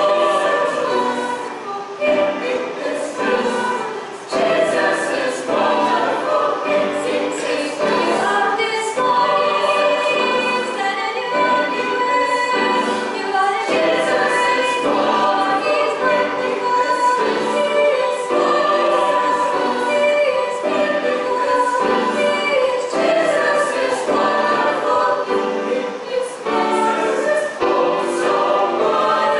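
A choir singing a hymn, several voices holding sustained notes that change every second or two.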